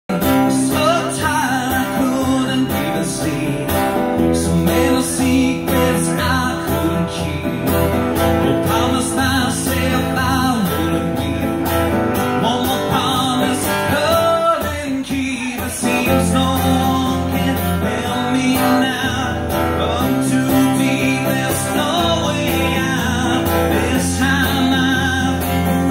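Live solo performance: a singer's voice with a strummed acoustic guitar, played steadily.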